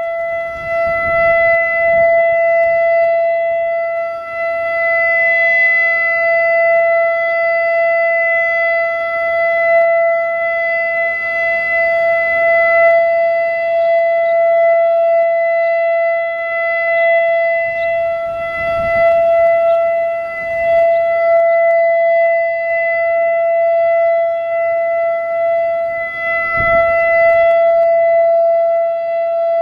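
ASC E-Class EC4 outdoor tornado warning siren sounding a steady tone at a constant pitch, its loudness wavering slightly, during a routine test.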